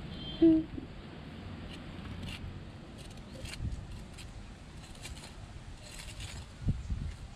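Bare hands scraping and digging in loose soil among leafy weeds, with small scratches and rustles throughout. A brief loud pitched squeak about half a second in, and a couple of soft thumps near the end.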